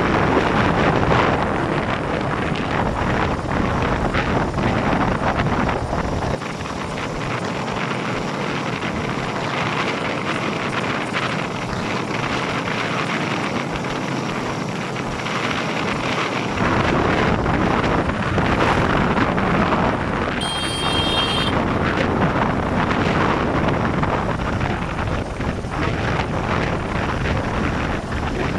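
Wind buffeting the microphone over the steady road and engine noise of riding in an open vehicle on a highway bridge. About two-thirds of the way through, a brief high-pitched beep sounds for about a second.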